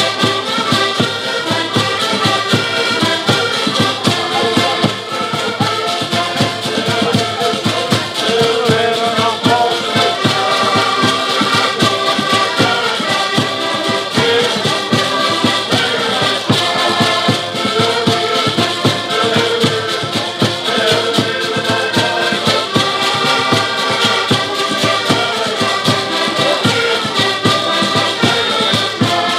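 Portuguese folk band playing an instrumental passage: several button accordions carry a lively tune together, over a steady beat of drum and rattling percussion.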